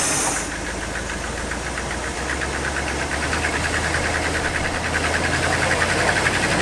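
1977 Dodge D150 pickup's engine running after sitting 12 years, its speed rising slightly about halfway through, with a rapid even ticking that grows louder toward the end.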